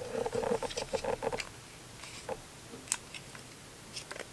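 Small items being handled from a camera box: a brief pitched sound in the first second and a half, then a few light, scattered clicks and taps.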